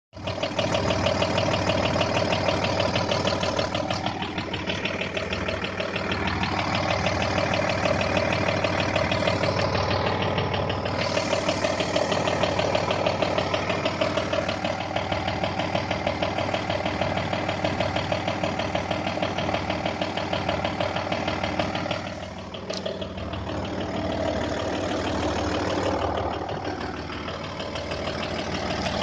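VW/Audi 2.5 V6 TDI (AKN) diesel engine idling with a steady knock. The knock appeared after the control injector was replaced, and that injector tests perfectly on the bench, so the owner suspects the injection pump is failing.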